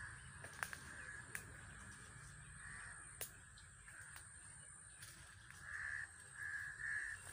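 A bird calling: three short calls close together near the end, with a couple of fainter ones earlier. A few sharp snaps in the first half, like dry twigs or leaves crunching underfoot.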